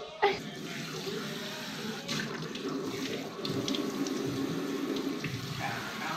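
A sharp knock, then water running steadily, as from a tap.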